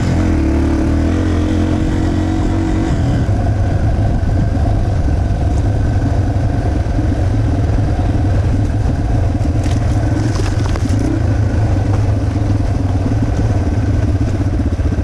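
Yamaha TT-R 230 trail bike's single-cylinder four-stroke engine running steadily at low trail speed, heard close up from the rider's helmet.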